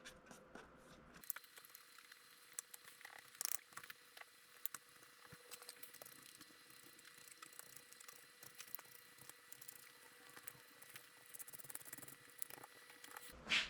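Faint, scattered scratching and light ticks of a cotton swab polishing a mixing-console channel strip, over a faint steady high tone.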